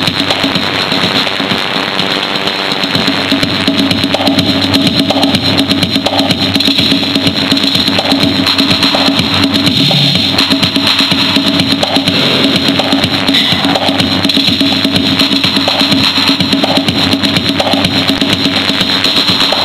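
Music with drums, received from a shortwave AM broadcast on 11850 kHz and heard through the radio receiver, so it sounds narrow and muffled, with nothing above the upper voice range.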